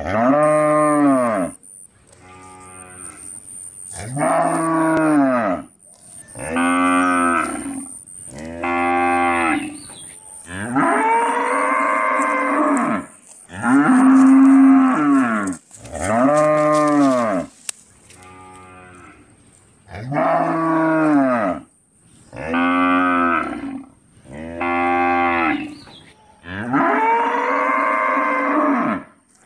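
A cow mooing repeatedly: about a dozen long moos, one every two or three seconds, each rising and then falling in pitch.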